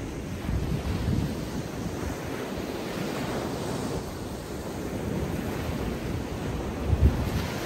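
Atlantic Ocean surf breaking and washing up a sandy beach in a steady rush. Wind buffets the microphone in low gusts, most strongly about a second in and again near the end.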